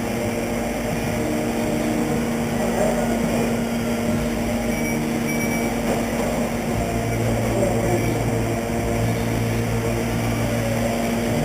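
Radio-controlled stock trucks running laps on a race track: a steady mechanical hum, with motor pitches drifting up and down as the trucks speed up and slow.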